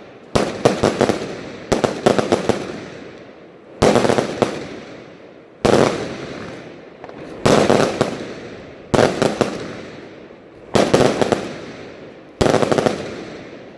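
Salute fireworks battery firing: loud bangs about every one and a half to two seconds, about eight of them, each a quick cluster of sharp cracks with an echo that dies away before the next.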